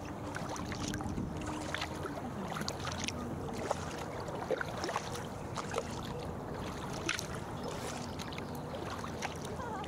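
Kayak paddling: paddle blades dipping into the water, with irregular small splashes and drips from the blades.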